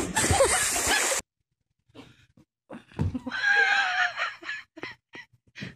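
A big splash into a swimming pool's water that cuts off sharply about a second in. About three seconds in, a separate short wavering pitched sound with a hiss over it lasts about a second and a half, followed by a few light knocks.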